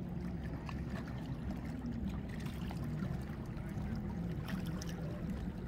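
Lake water lapping and sloshing gently, under a steady low rumble.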